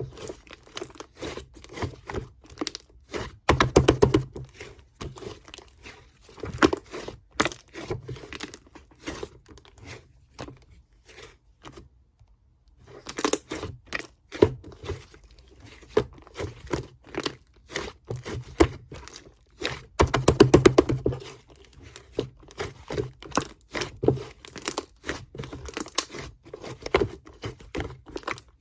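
Hands squeezing, stretching and pressing a sherbet slime: a dense run of sticky crackles and small pops, louder for a second or so about 4 s in and again about 20 s in, with a brief pause near the middle.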